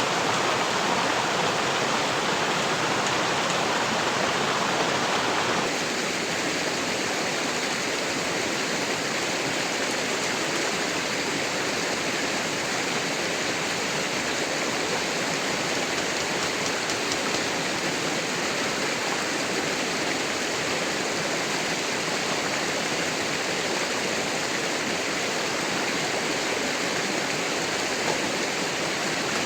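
Steady hiss of rushing water, a little quieter from about six seconds in.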